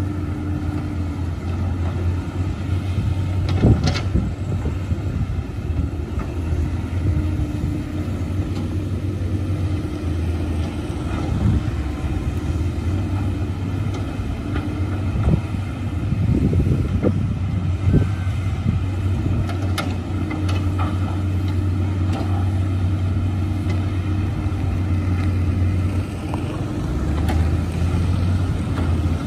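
Caterpillar 320C excavators' diesel engines running steadily under digging load, with a few sharp knocks of the working machinery, the clearest about four and twenty seconds in.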